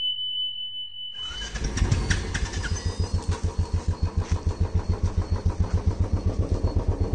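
Motorcycle engine idling with a quick, even thumping beat that comes in about a second in. Before that, a steady high electronic tone from the intro card sounds, ending about a second and a half in.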